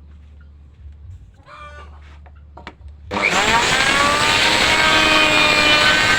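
Electric power-tool motor, used for mortising wood, switched on about halfway through and spinning up quickly in pitch to a steady high running speed.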